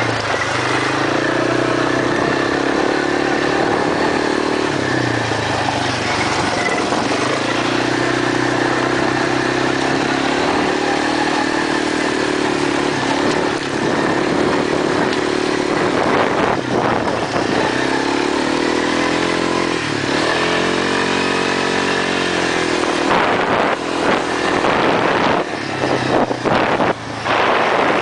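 ATV (quad) engine running steadily under way. About two-thirds of the way through, its pitch drops and climbs again as the throttle eases off and opens back up. In the last few seconds the sound turns choppy, with short knocks.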